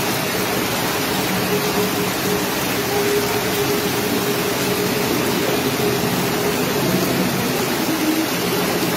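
Fast-flowing floodwater rushing through a street: a loud, steady rush of water, with a faint steady hum underneath for a few seconds.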